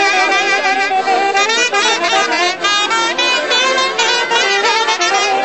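Village folk orchestra playing a traditional dance tune, the melody moving in quick notes with vibrato.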